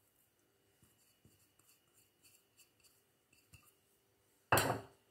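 Faint light taps as curry powder is tipped from a small bowl onto raw chicken in a stainless-steel bowl, then a single short, loud knock about four and a half seconds in.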